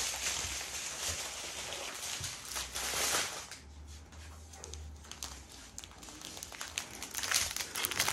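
Plastic crinkling as small plastic packets of diamond-painting drills are handled. The crinkling fills the first few seconds, goes quieter in the middle, and comes back as sharper crackles near the end.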